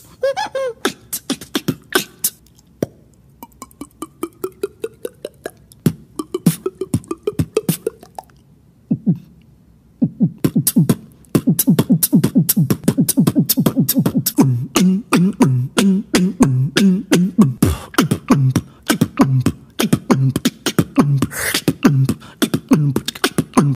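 A beatboxer making vocal sound effects with the mouth: rapid clicks and pops, with a slow rising pitched tone about three seconds in. From about ten seconds in comes a fast, even rhythm of clicks over low pitched pulses.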